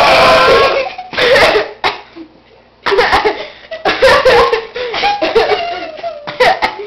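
Laughing and giggling, broken into short wavering bursts, after a loud cough-like burst right at the start.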